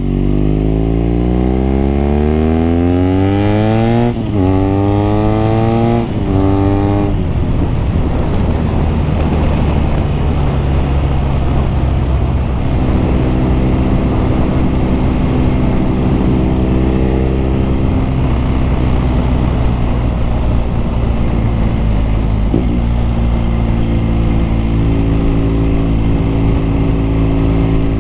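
BMW R nineT's boxer twin accelerating hard through the gears: the pitch climbs, drops at an upshift about four seconds in, climbs again and drops at a second shift about two seconds later, then the engine settles to steady revs while cruising.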